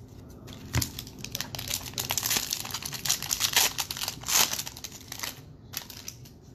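Foil wrapper of a Topps baseball card pack being torn open and peeled apart by hand. It makes a dense crinkling crackle that starts about a second in and lasts about four seconds.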